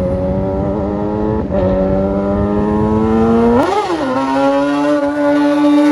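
Kawasaki ZX-10R's inline-four engine running under way, its pitch climbing slowly, then a quick rise and fall a little after halfway before it holds steady at a higher pitch.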